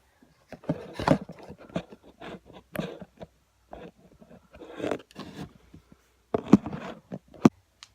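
Close handling noises: an irregular run of scrapes, clicks and knocks, with the loudest knocks near the end.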